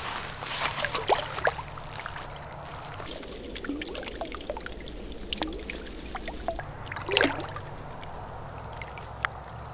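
Water splashing and dripping as a largemouth bass is held by the lip in the shallows and thrashes, with a few sharp splashes about a second in and again about seven seconds in.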